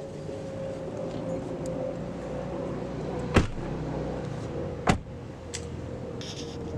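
A car driving, heard from inside the cabin: a steady low rumble with a steady drone. Two sharp knocks come about a second and a half apart midway through.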